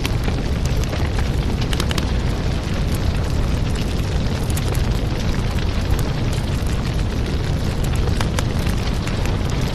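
Helicopter noise: a loud, steady rumble, heaviest in the low end, with scattered sharp clicks and crackles.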